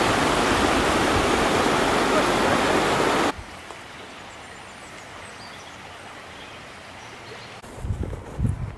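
Shallow river rushing over rocks, loud and steady, cutting off suddenly about three seconds in. After it comes a faint outdoor hush, and near the end wind gusts buffet the microphone.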